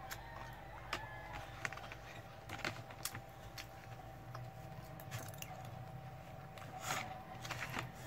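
Scattered light clicks and taps of eating utensils against a paper meal box, with faint chewing, over a steady faint hum. A short louder rush of noise comes about seven seconds in.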